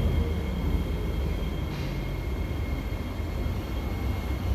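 Cabin noise inside an SMRT C151A metro carriage: a steady low rumble with two faint, steady high whines.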